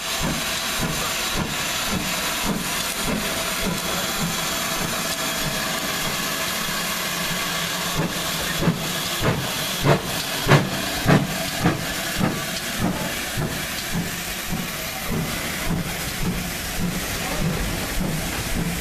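GWR 2884 class 2-8-0 steam locomotive No. 3850 passing close with a train, its steam hissing steadily. About eight seconds in comes a run of loud, rhythmic beats as the engine goes by, about one every 0.6 s, and then the carriages roll past with lighter regular wheel clicks.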